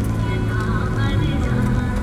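Music playing, with held notes and a wavering melody over a bass line that steps between notes.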